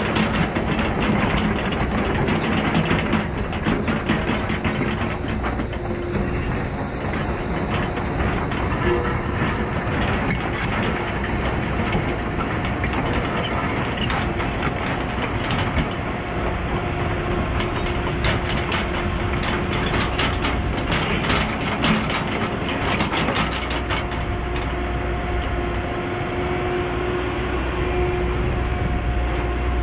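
Cat 314E hydraulic excavator at work on rocky ground: its diesel engine runs steadily with a whine from the hydraulics. Frequent clanks and rattles come from the steel tracks and from rock under the bucket.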